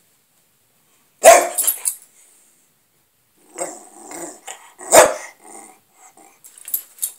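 A dog barking: a loud bark about a second in, quieter vocal sounds around four seconds, another loud bark at five seconds, and a few smaller sounds near the end.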